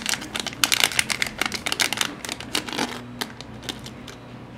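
Anti-static plastic bag crinkling and crackling as it is opened and an adapter card is pulled out: dense crackling for about three seconds, then a few scattered ticks.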